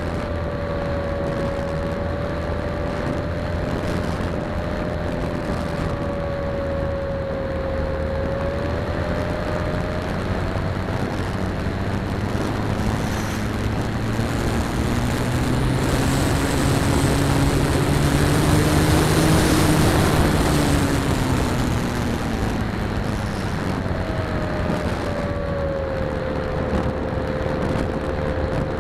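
Electric motor and propeller of an E-flite Apprentice S trainer RC plane, heard from its onboard camera: a steady whine in flight with rushing air. The wind noise swells midway as the plane points down toward the houses, while a lower tone rises and then falls; the steady whine returns near the end.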